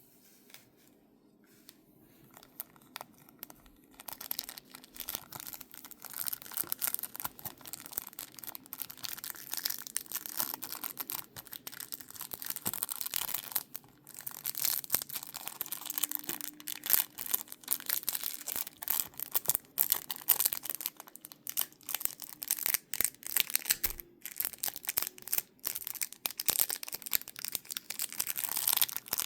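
Packaging being torn open and crinkled by hand, a dense, irregular crackling that starts about four seconds in.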